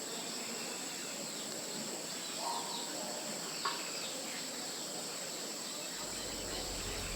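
Rainforest ambience: a steady high-pitched insect drone, with a few brief bird chirps.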